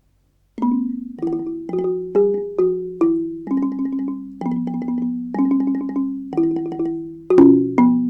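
Ranat thum, the Thai bass xylophone, played solo with padded mallets. It enters about half a second in with rhythmic phrases of struck notes, mostly two at a time, each ringing and then dying away.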